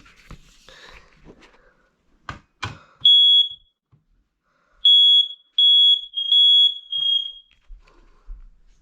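Smoke alarm sounding during a test: loud, high-pitched beeps, one beep, a pause of over a second, then three beeps in quick succession, the last trailing off as the test ends.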